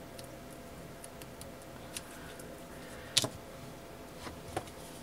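Small scissors snipping and trimming a piece of ribbon: a few faint snips and ticks, with one sharper click about three seconds in.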